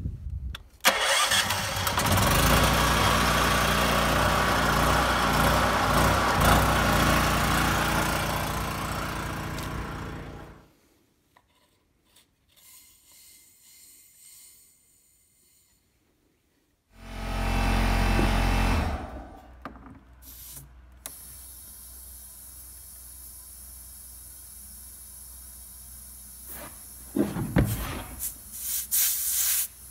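Portable generator's engine starting and running steadily for several seconds, then stopping abruptly. After a pause, a brief second burst of engine noise, then a faint steady hiss with a few knocks near the end.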